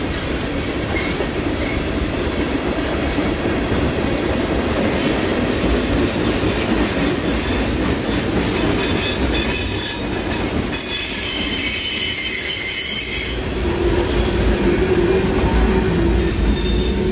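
Freight train cars rolling along the track, their steel wheels squealing on the rails; the high squeal is strongest a little past the middle. A steady low hum comes in near the end.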